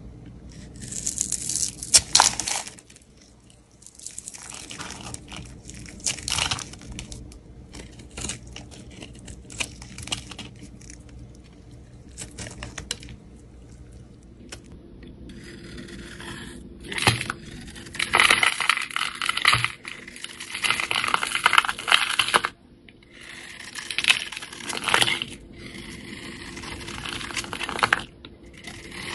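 Snap-off utility knife blade cutting and shaving bars of soap: irregular runs of crisp scraping and crunching strokes as slices and curls break away, denser and louder in the second half.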